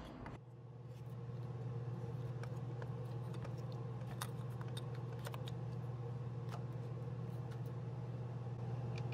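Scattered light clicks and taps of hands working a plastic ignition coil and its boot down into the engine's coil bore, over a steady low hum.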